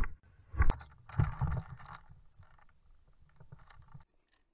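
Handling noise on an airsoft rifle's scope camera: clothing and gear rustling against the gun, with irregular knocks and low thumps and one sharp click under a second in. It cuts off abruptly near the end.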